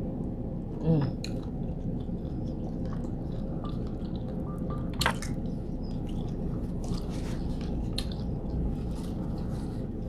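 Close-up chewing of shrimp and grits: wet, squishy mouth sounds with scattered smacks and clicks over a steady low hum. A short hummed 'mm' comes about a second in.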